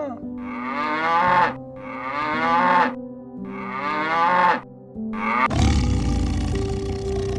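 Cow mooing three times in a row, each call about a second long and rising in pitch, with a short fourth call near the five-second mark, over background music. After that a steady rushing noise takes over.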